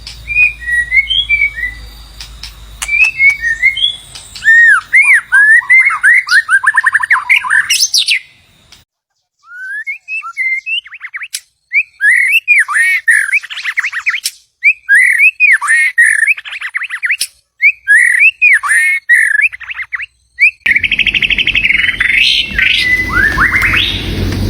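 White-rumped shama singing: rapid, varied whistled phrases of looping, up-and-down notes in bursts, with a short pause about a third of the way in. Near the end a rough background rumble and hiss comes in under the song.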